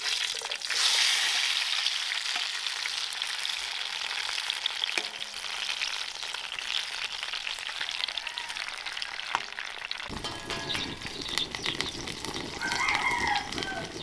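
Sliced tomatoes and tomatillos dropping into a pan of hot lard, sizzling from about half a second in and frying steadily as a metal spatula spreads them. A rooster crows briefly near the end.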